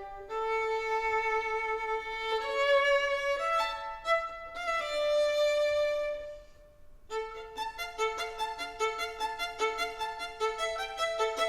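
Solo violin playing slow, held notes. After a brief pause a little past halfway, it plays a quick run of short, separate notes, several a second.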